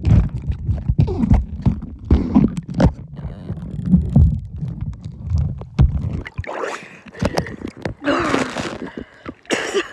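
Underwater pool audio from a camera carried on a swimmer's neck: muffled low rumbling and knocks of water and body movement against the camera. About six seconds in the camera breaks the surface and the sound turns to splashing and running water.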